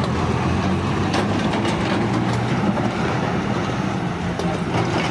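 Heavy engine running steadily with a low hum, with scattered clicks and knocks over it.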